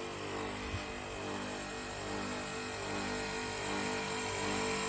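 Compressor of a 2-horsepower air conditioner outdoor unit running without its fan and without refrigerant, giving a steady loud mechanical hum. The noise is excessive, which the technician puts down to the worn-out rubber mounts under the compressor.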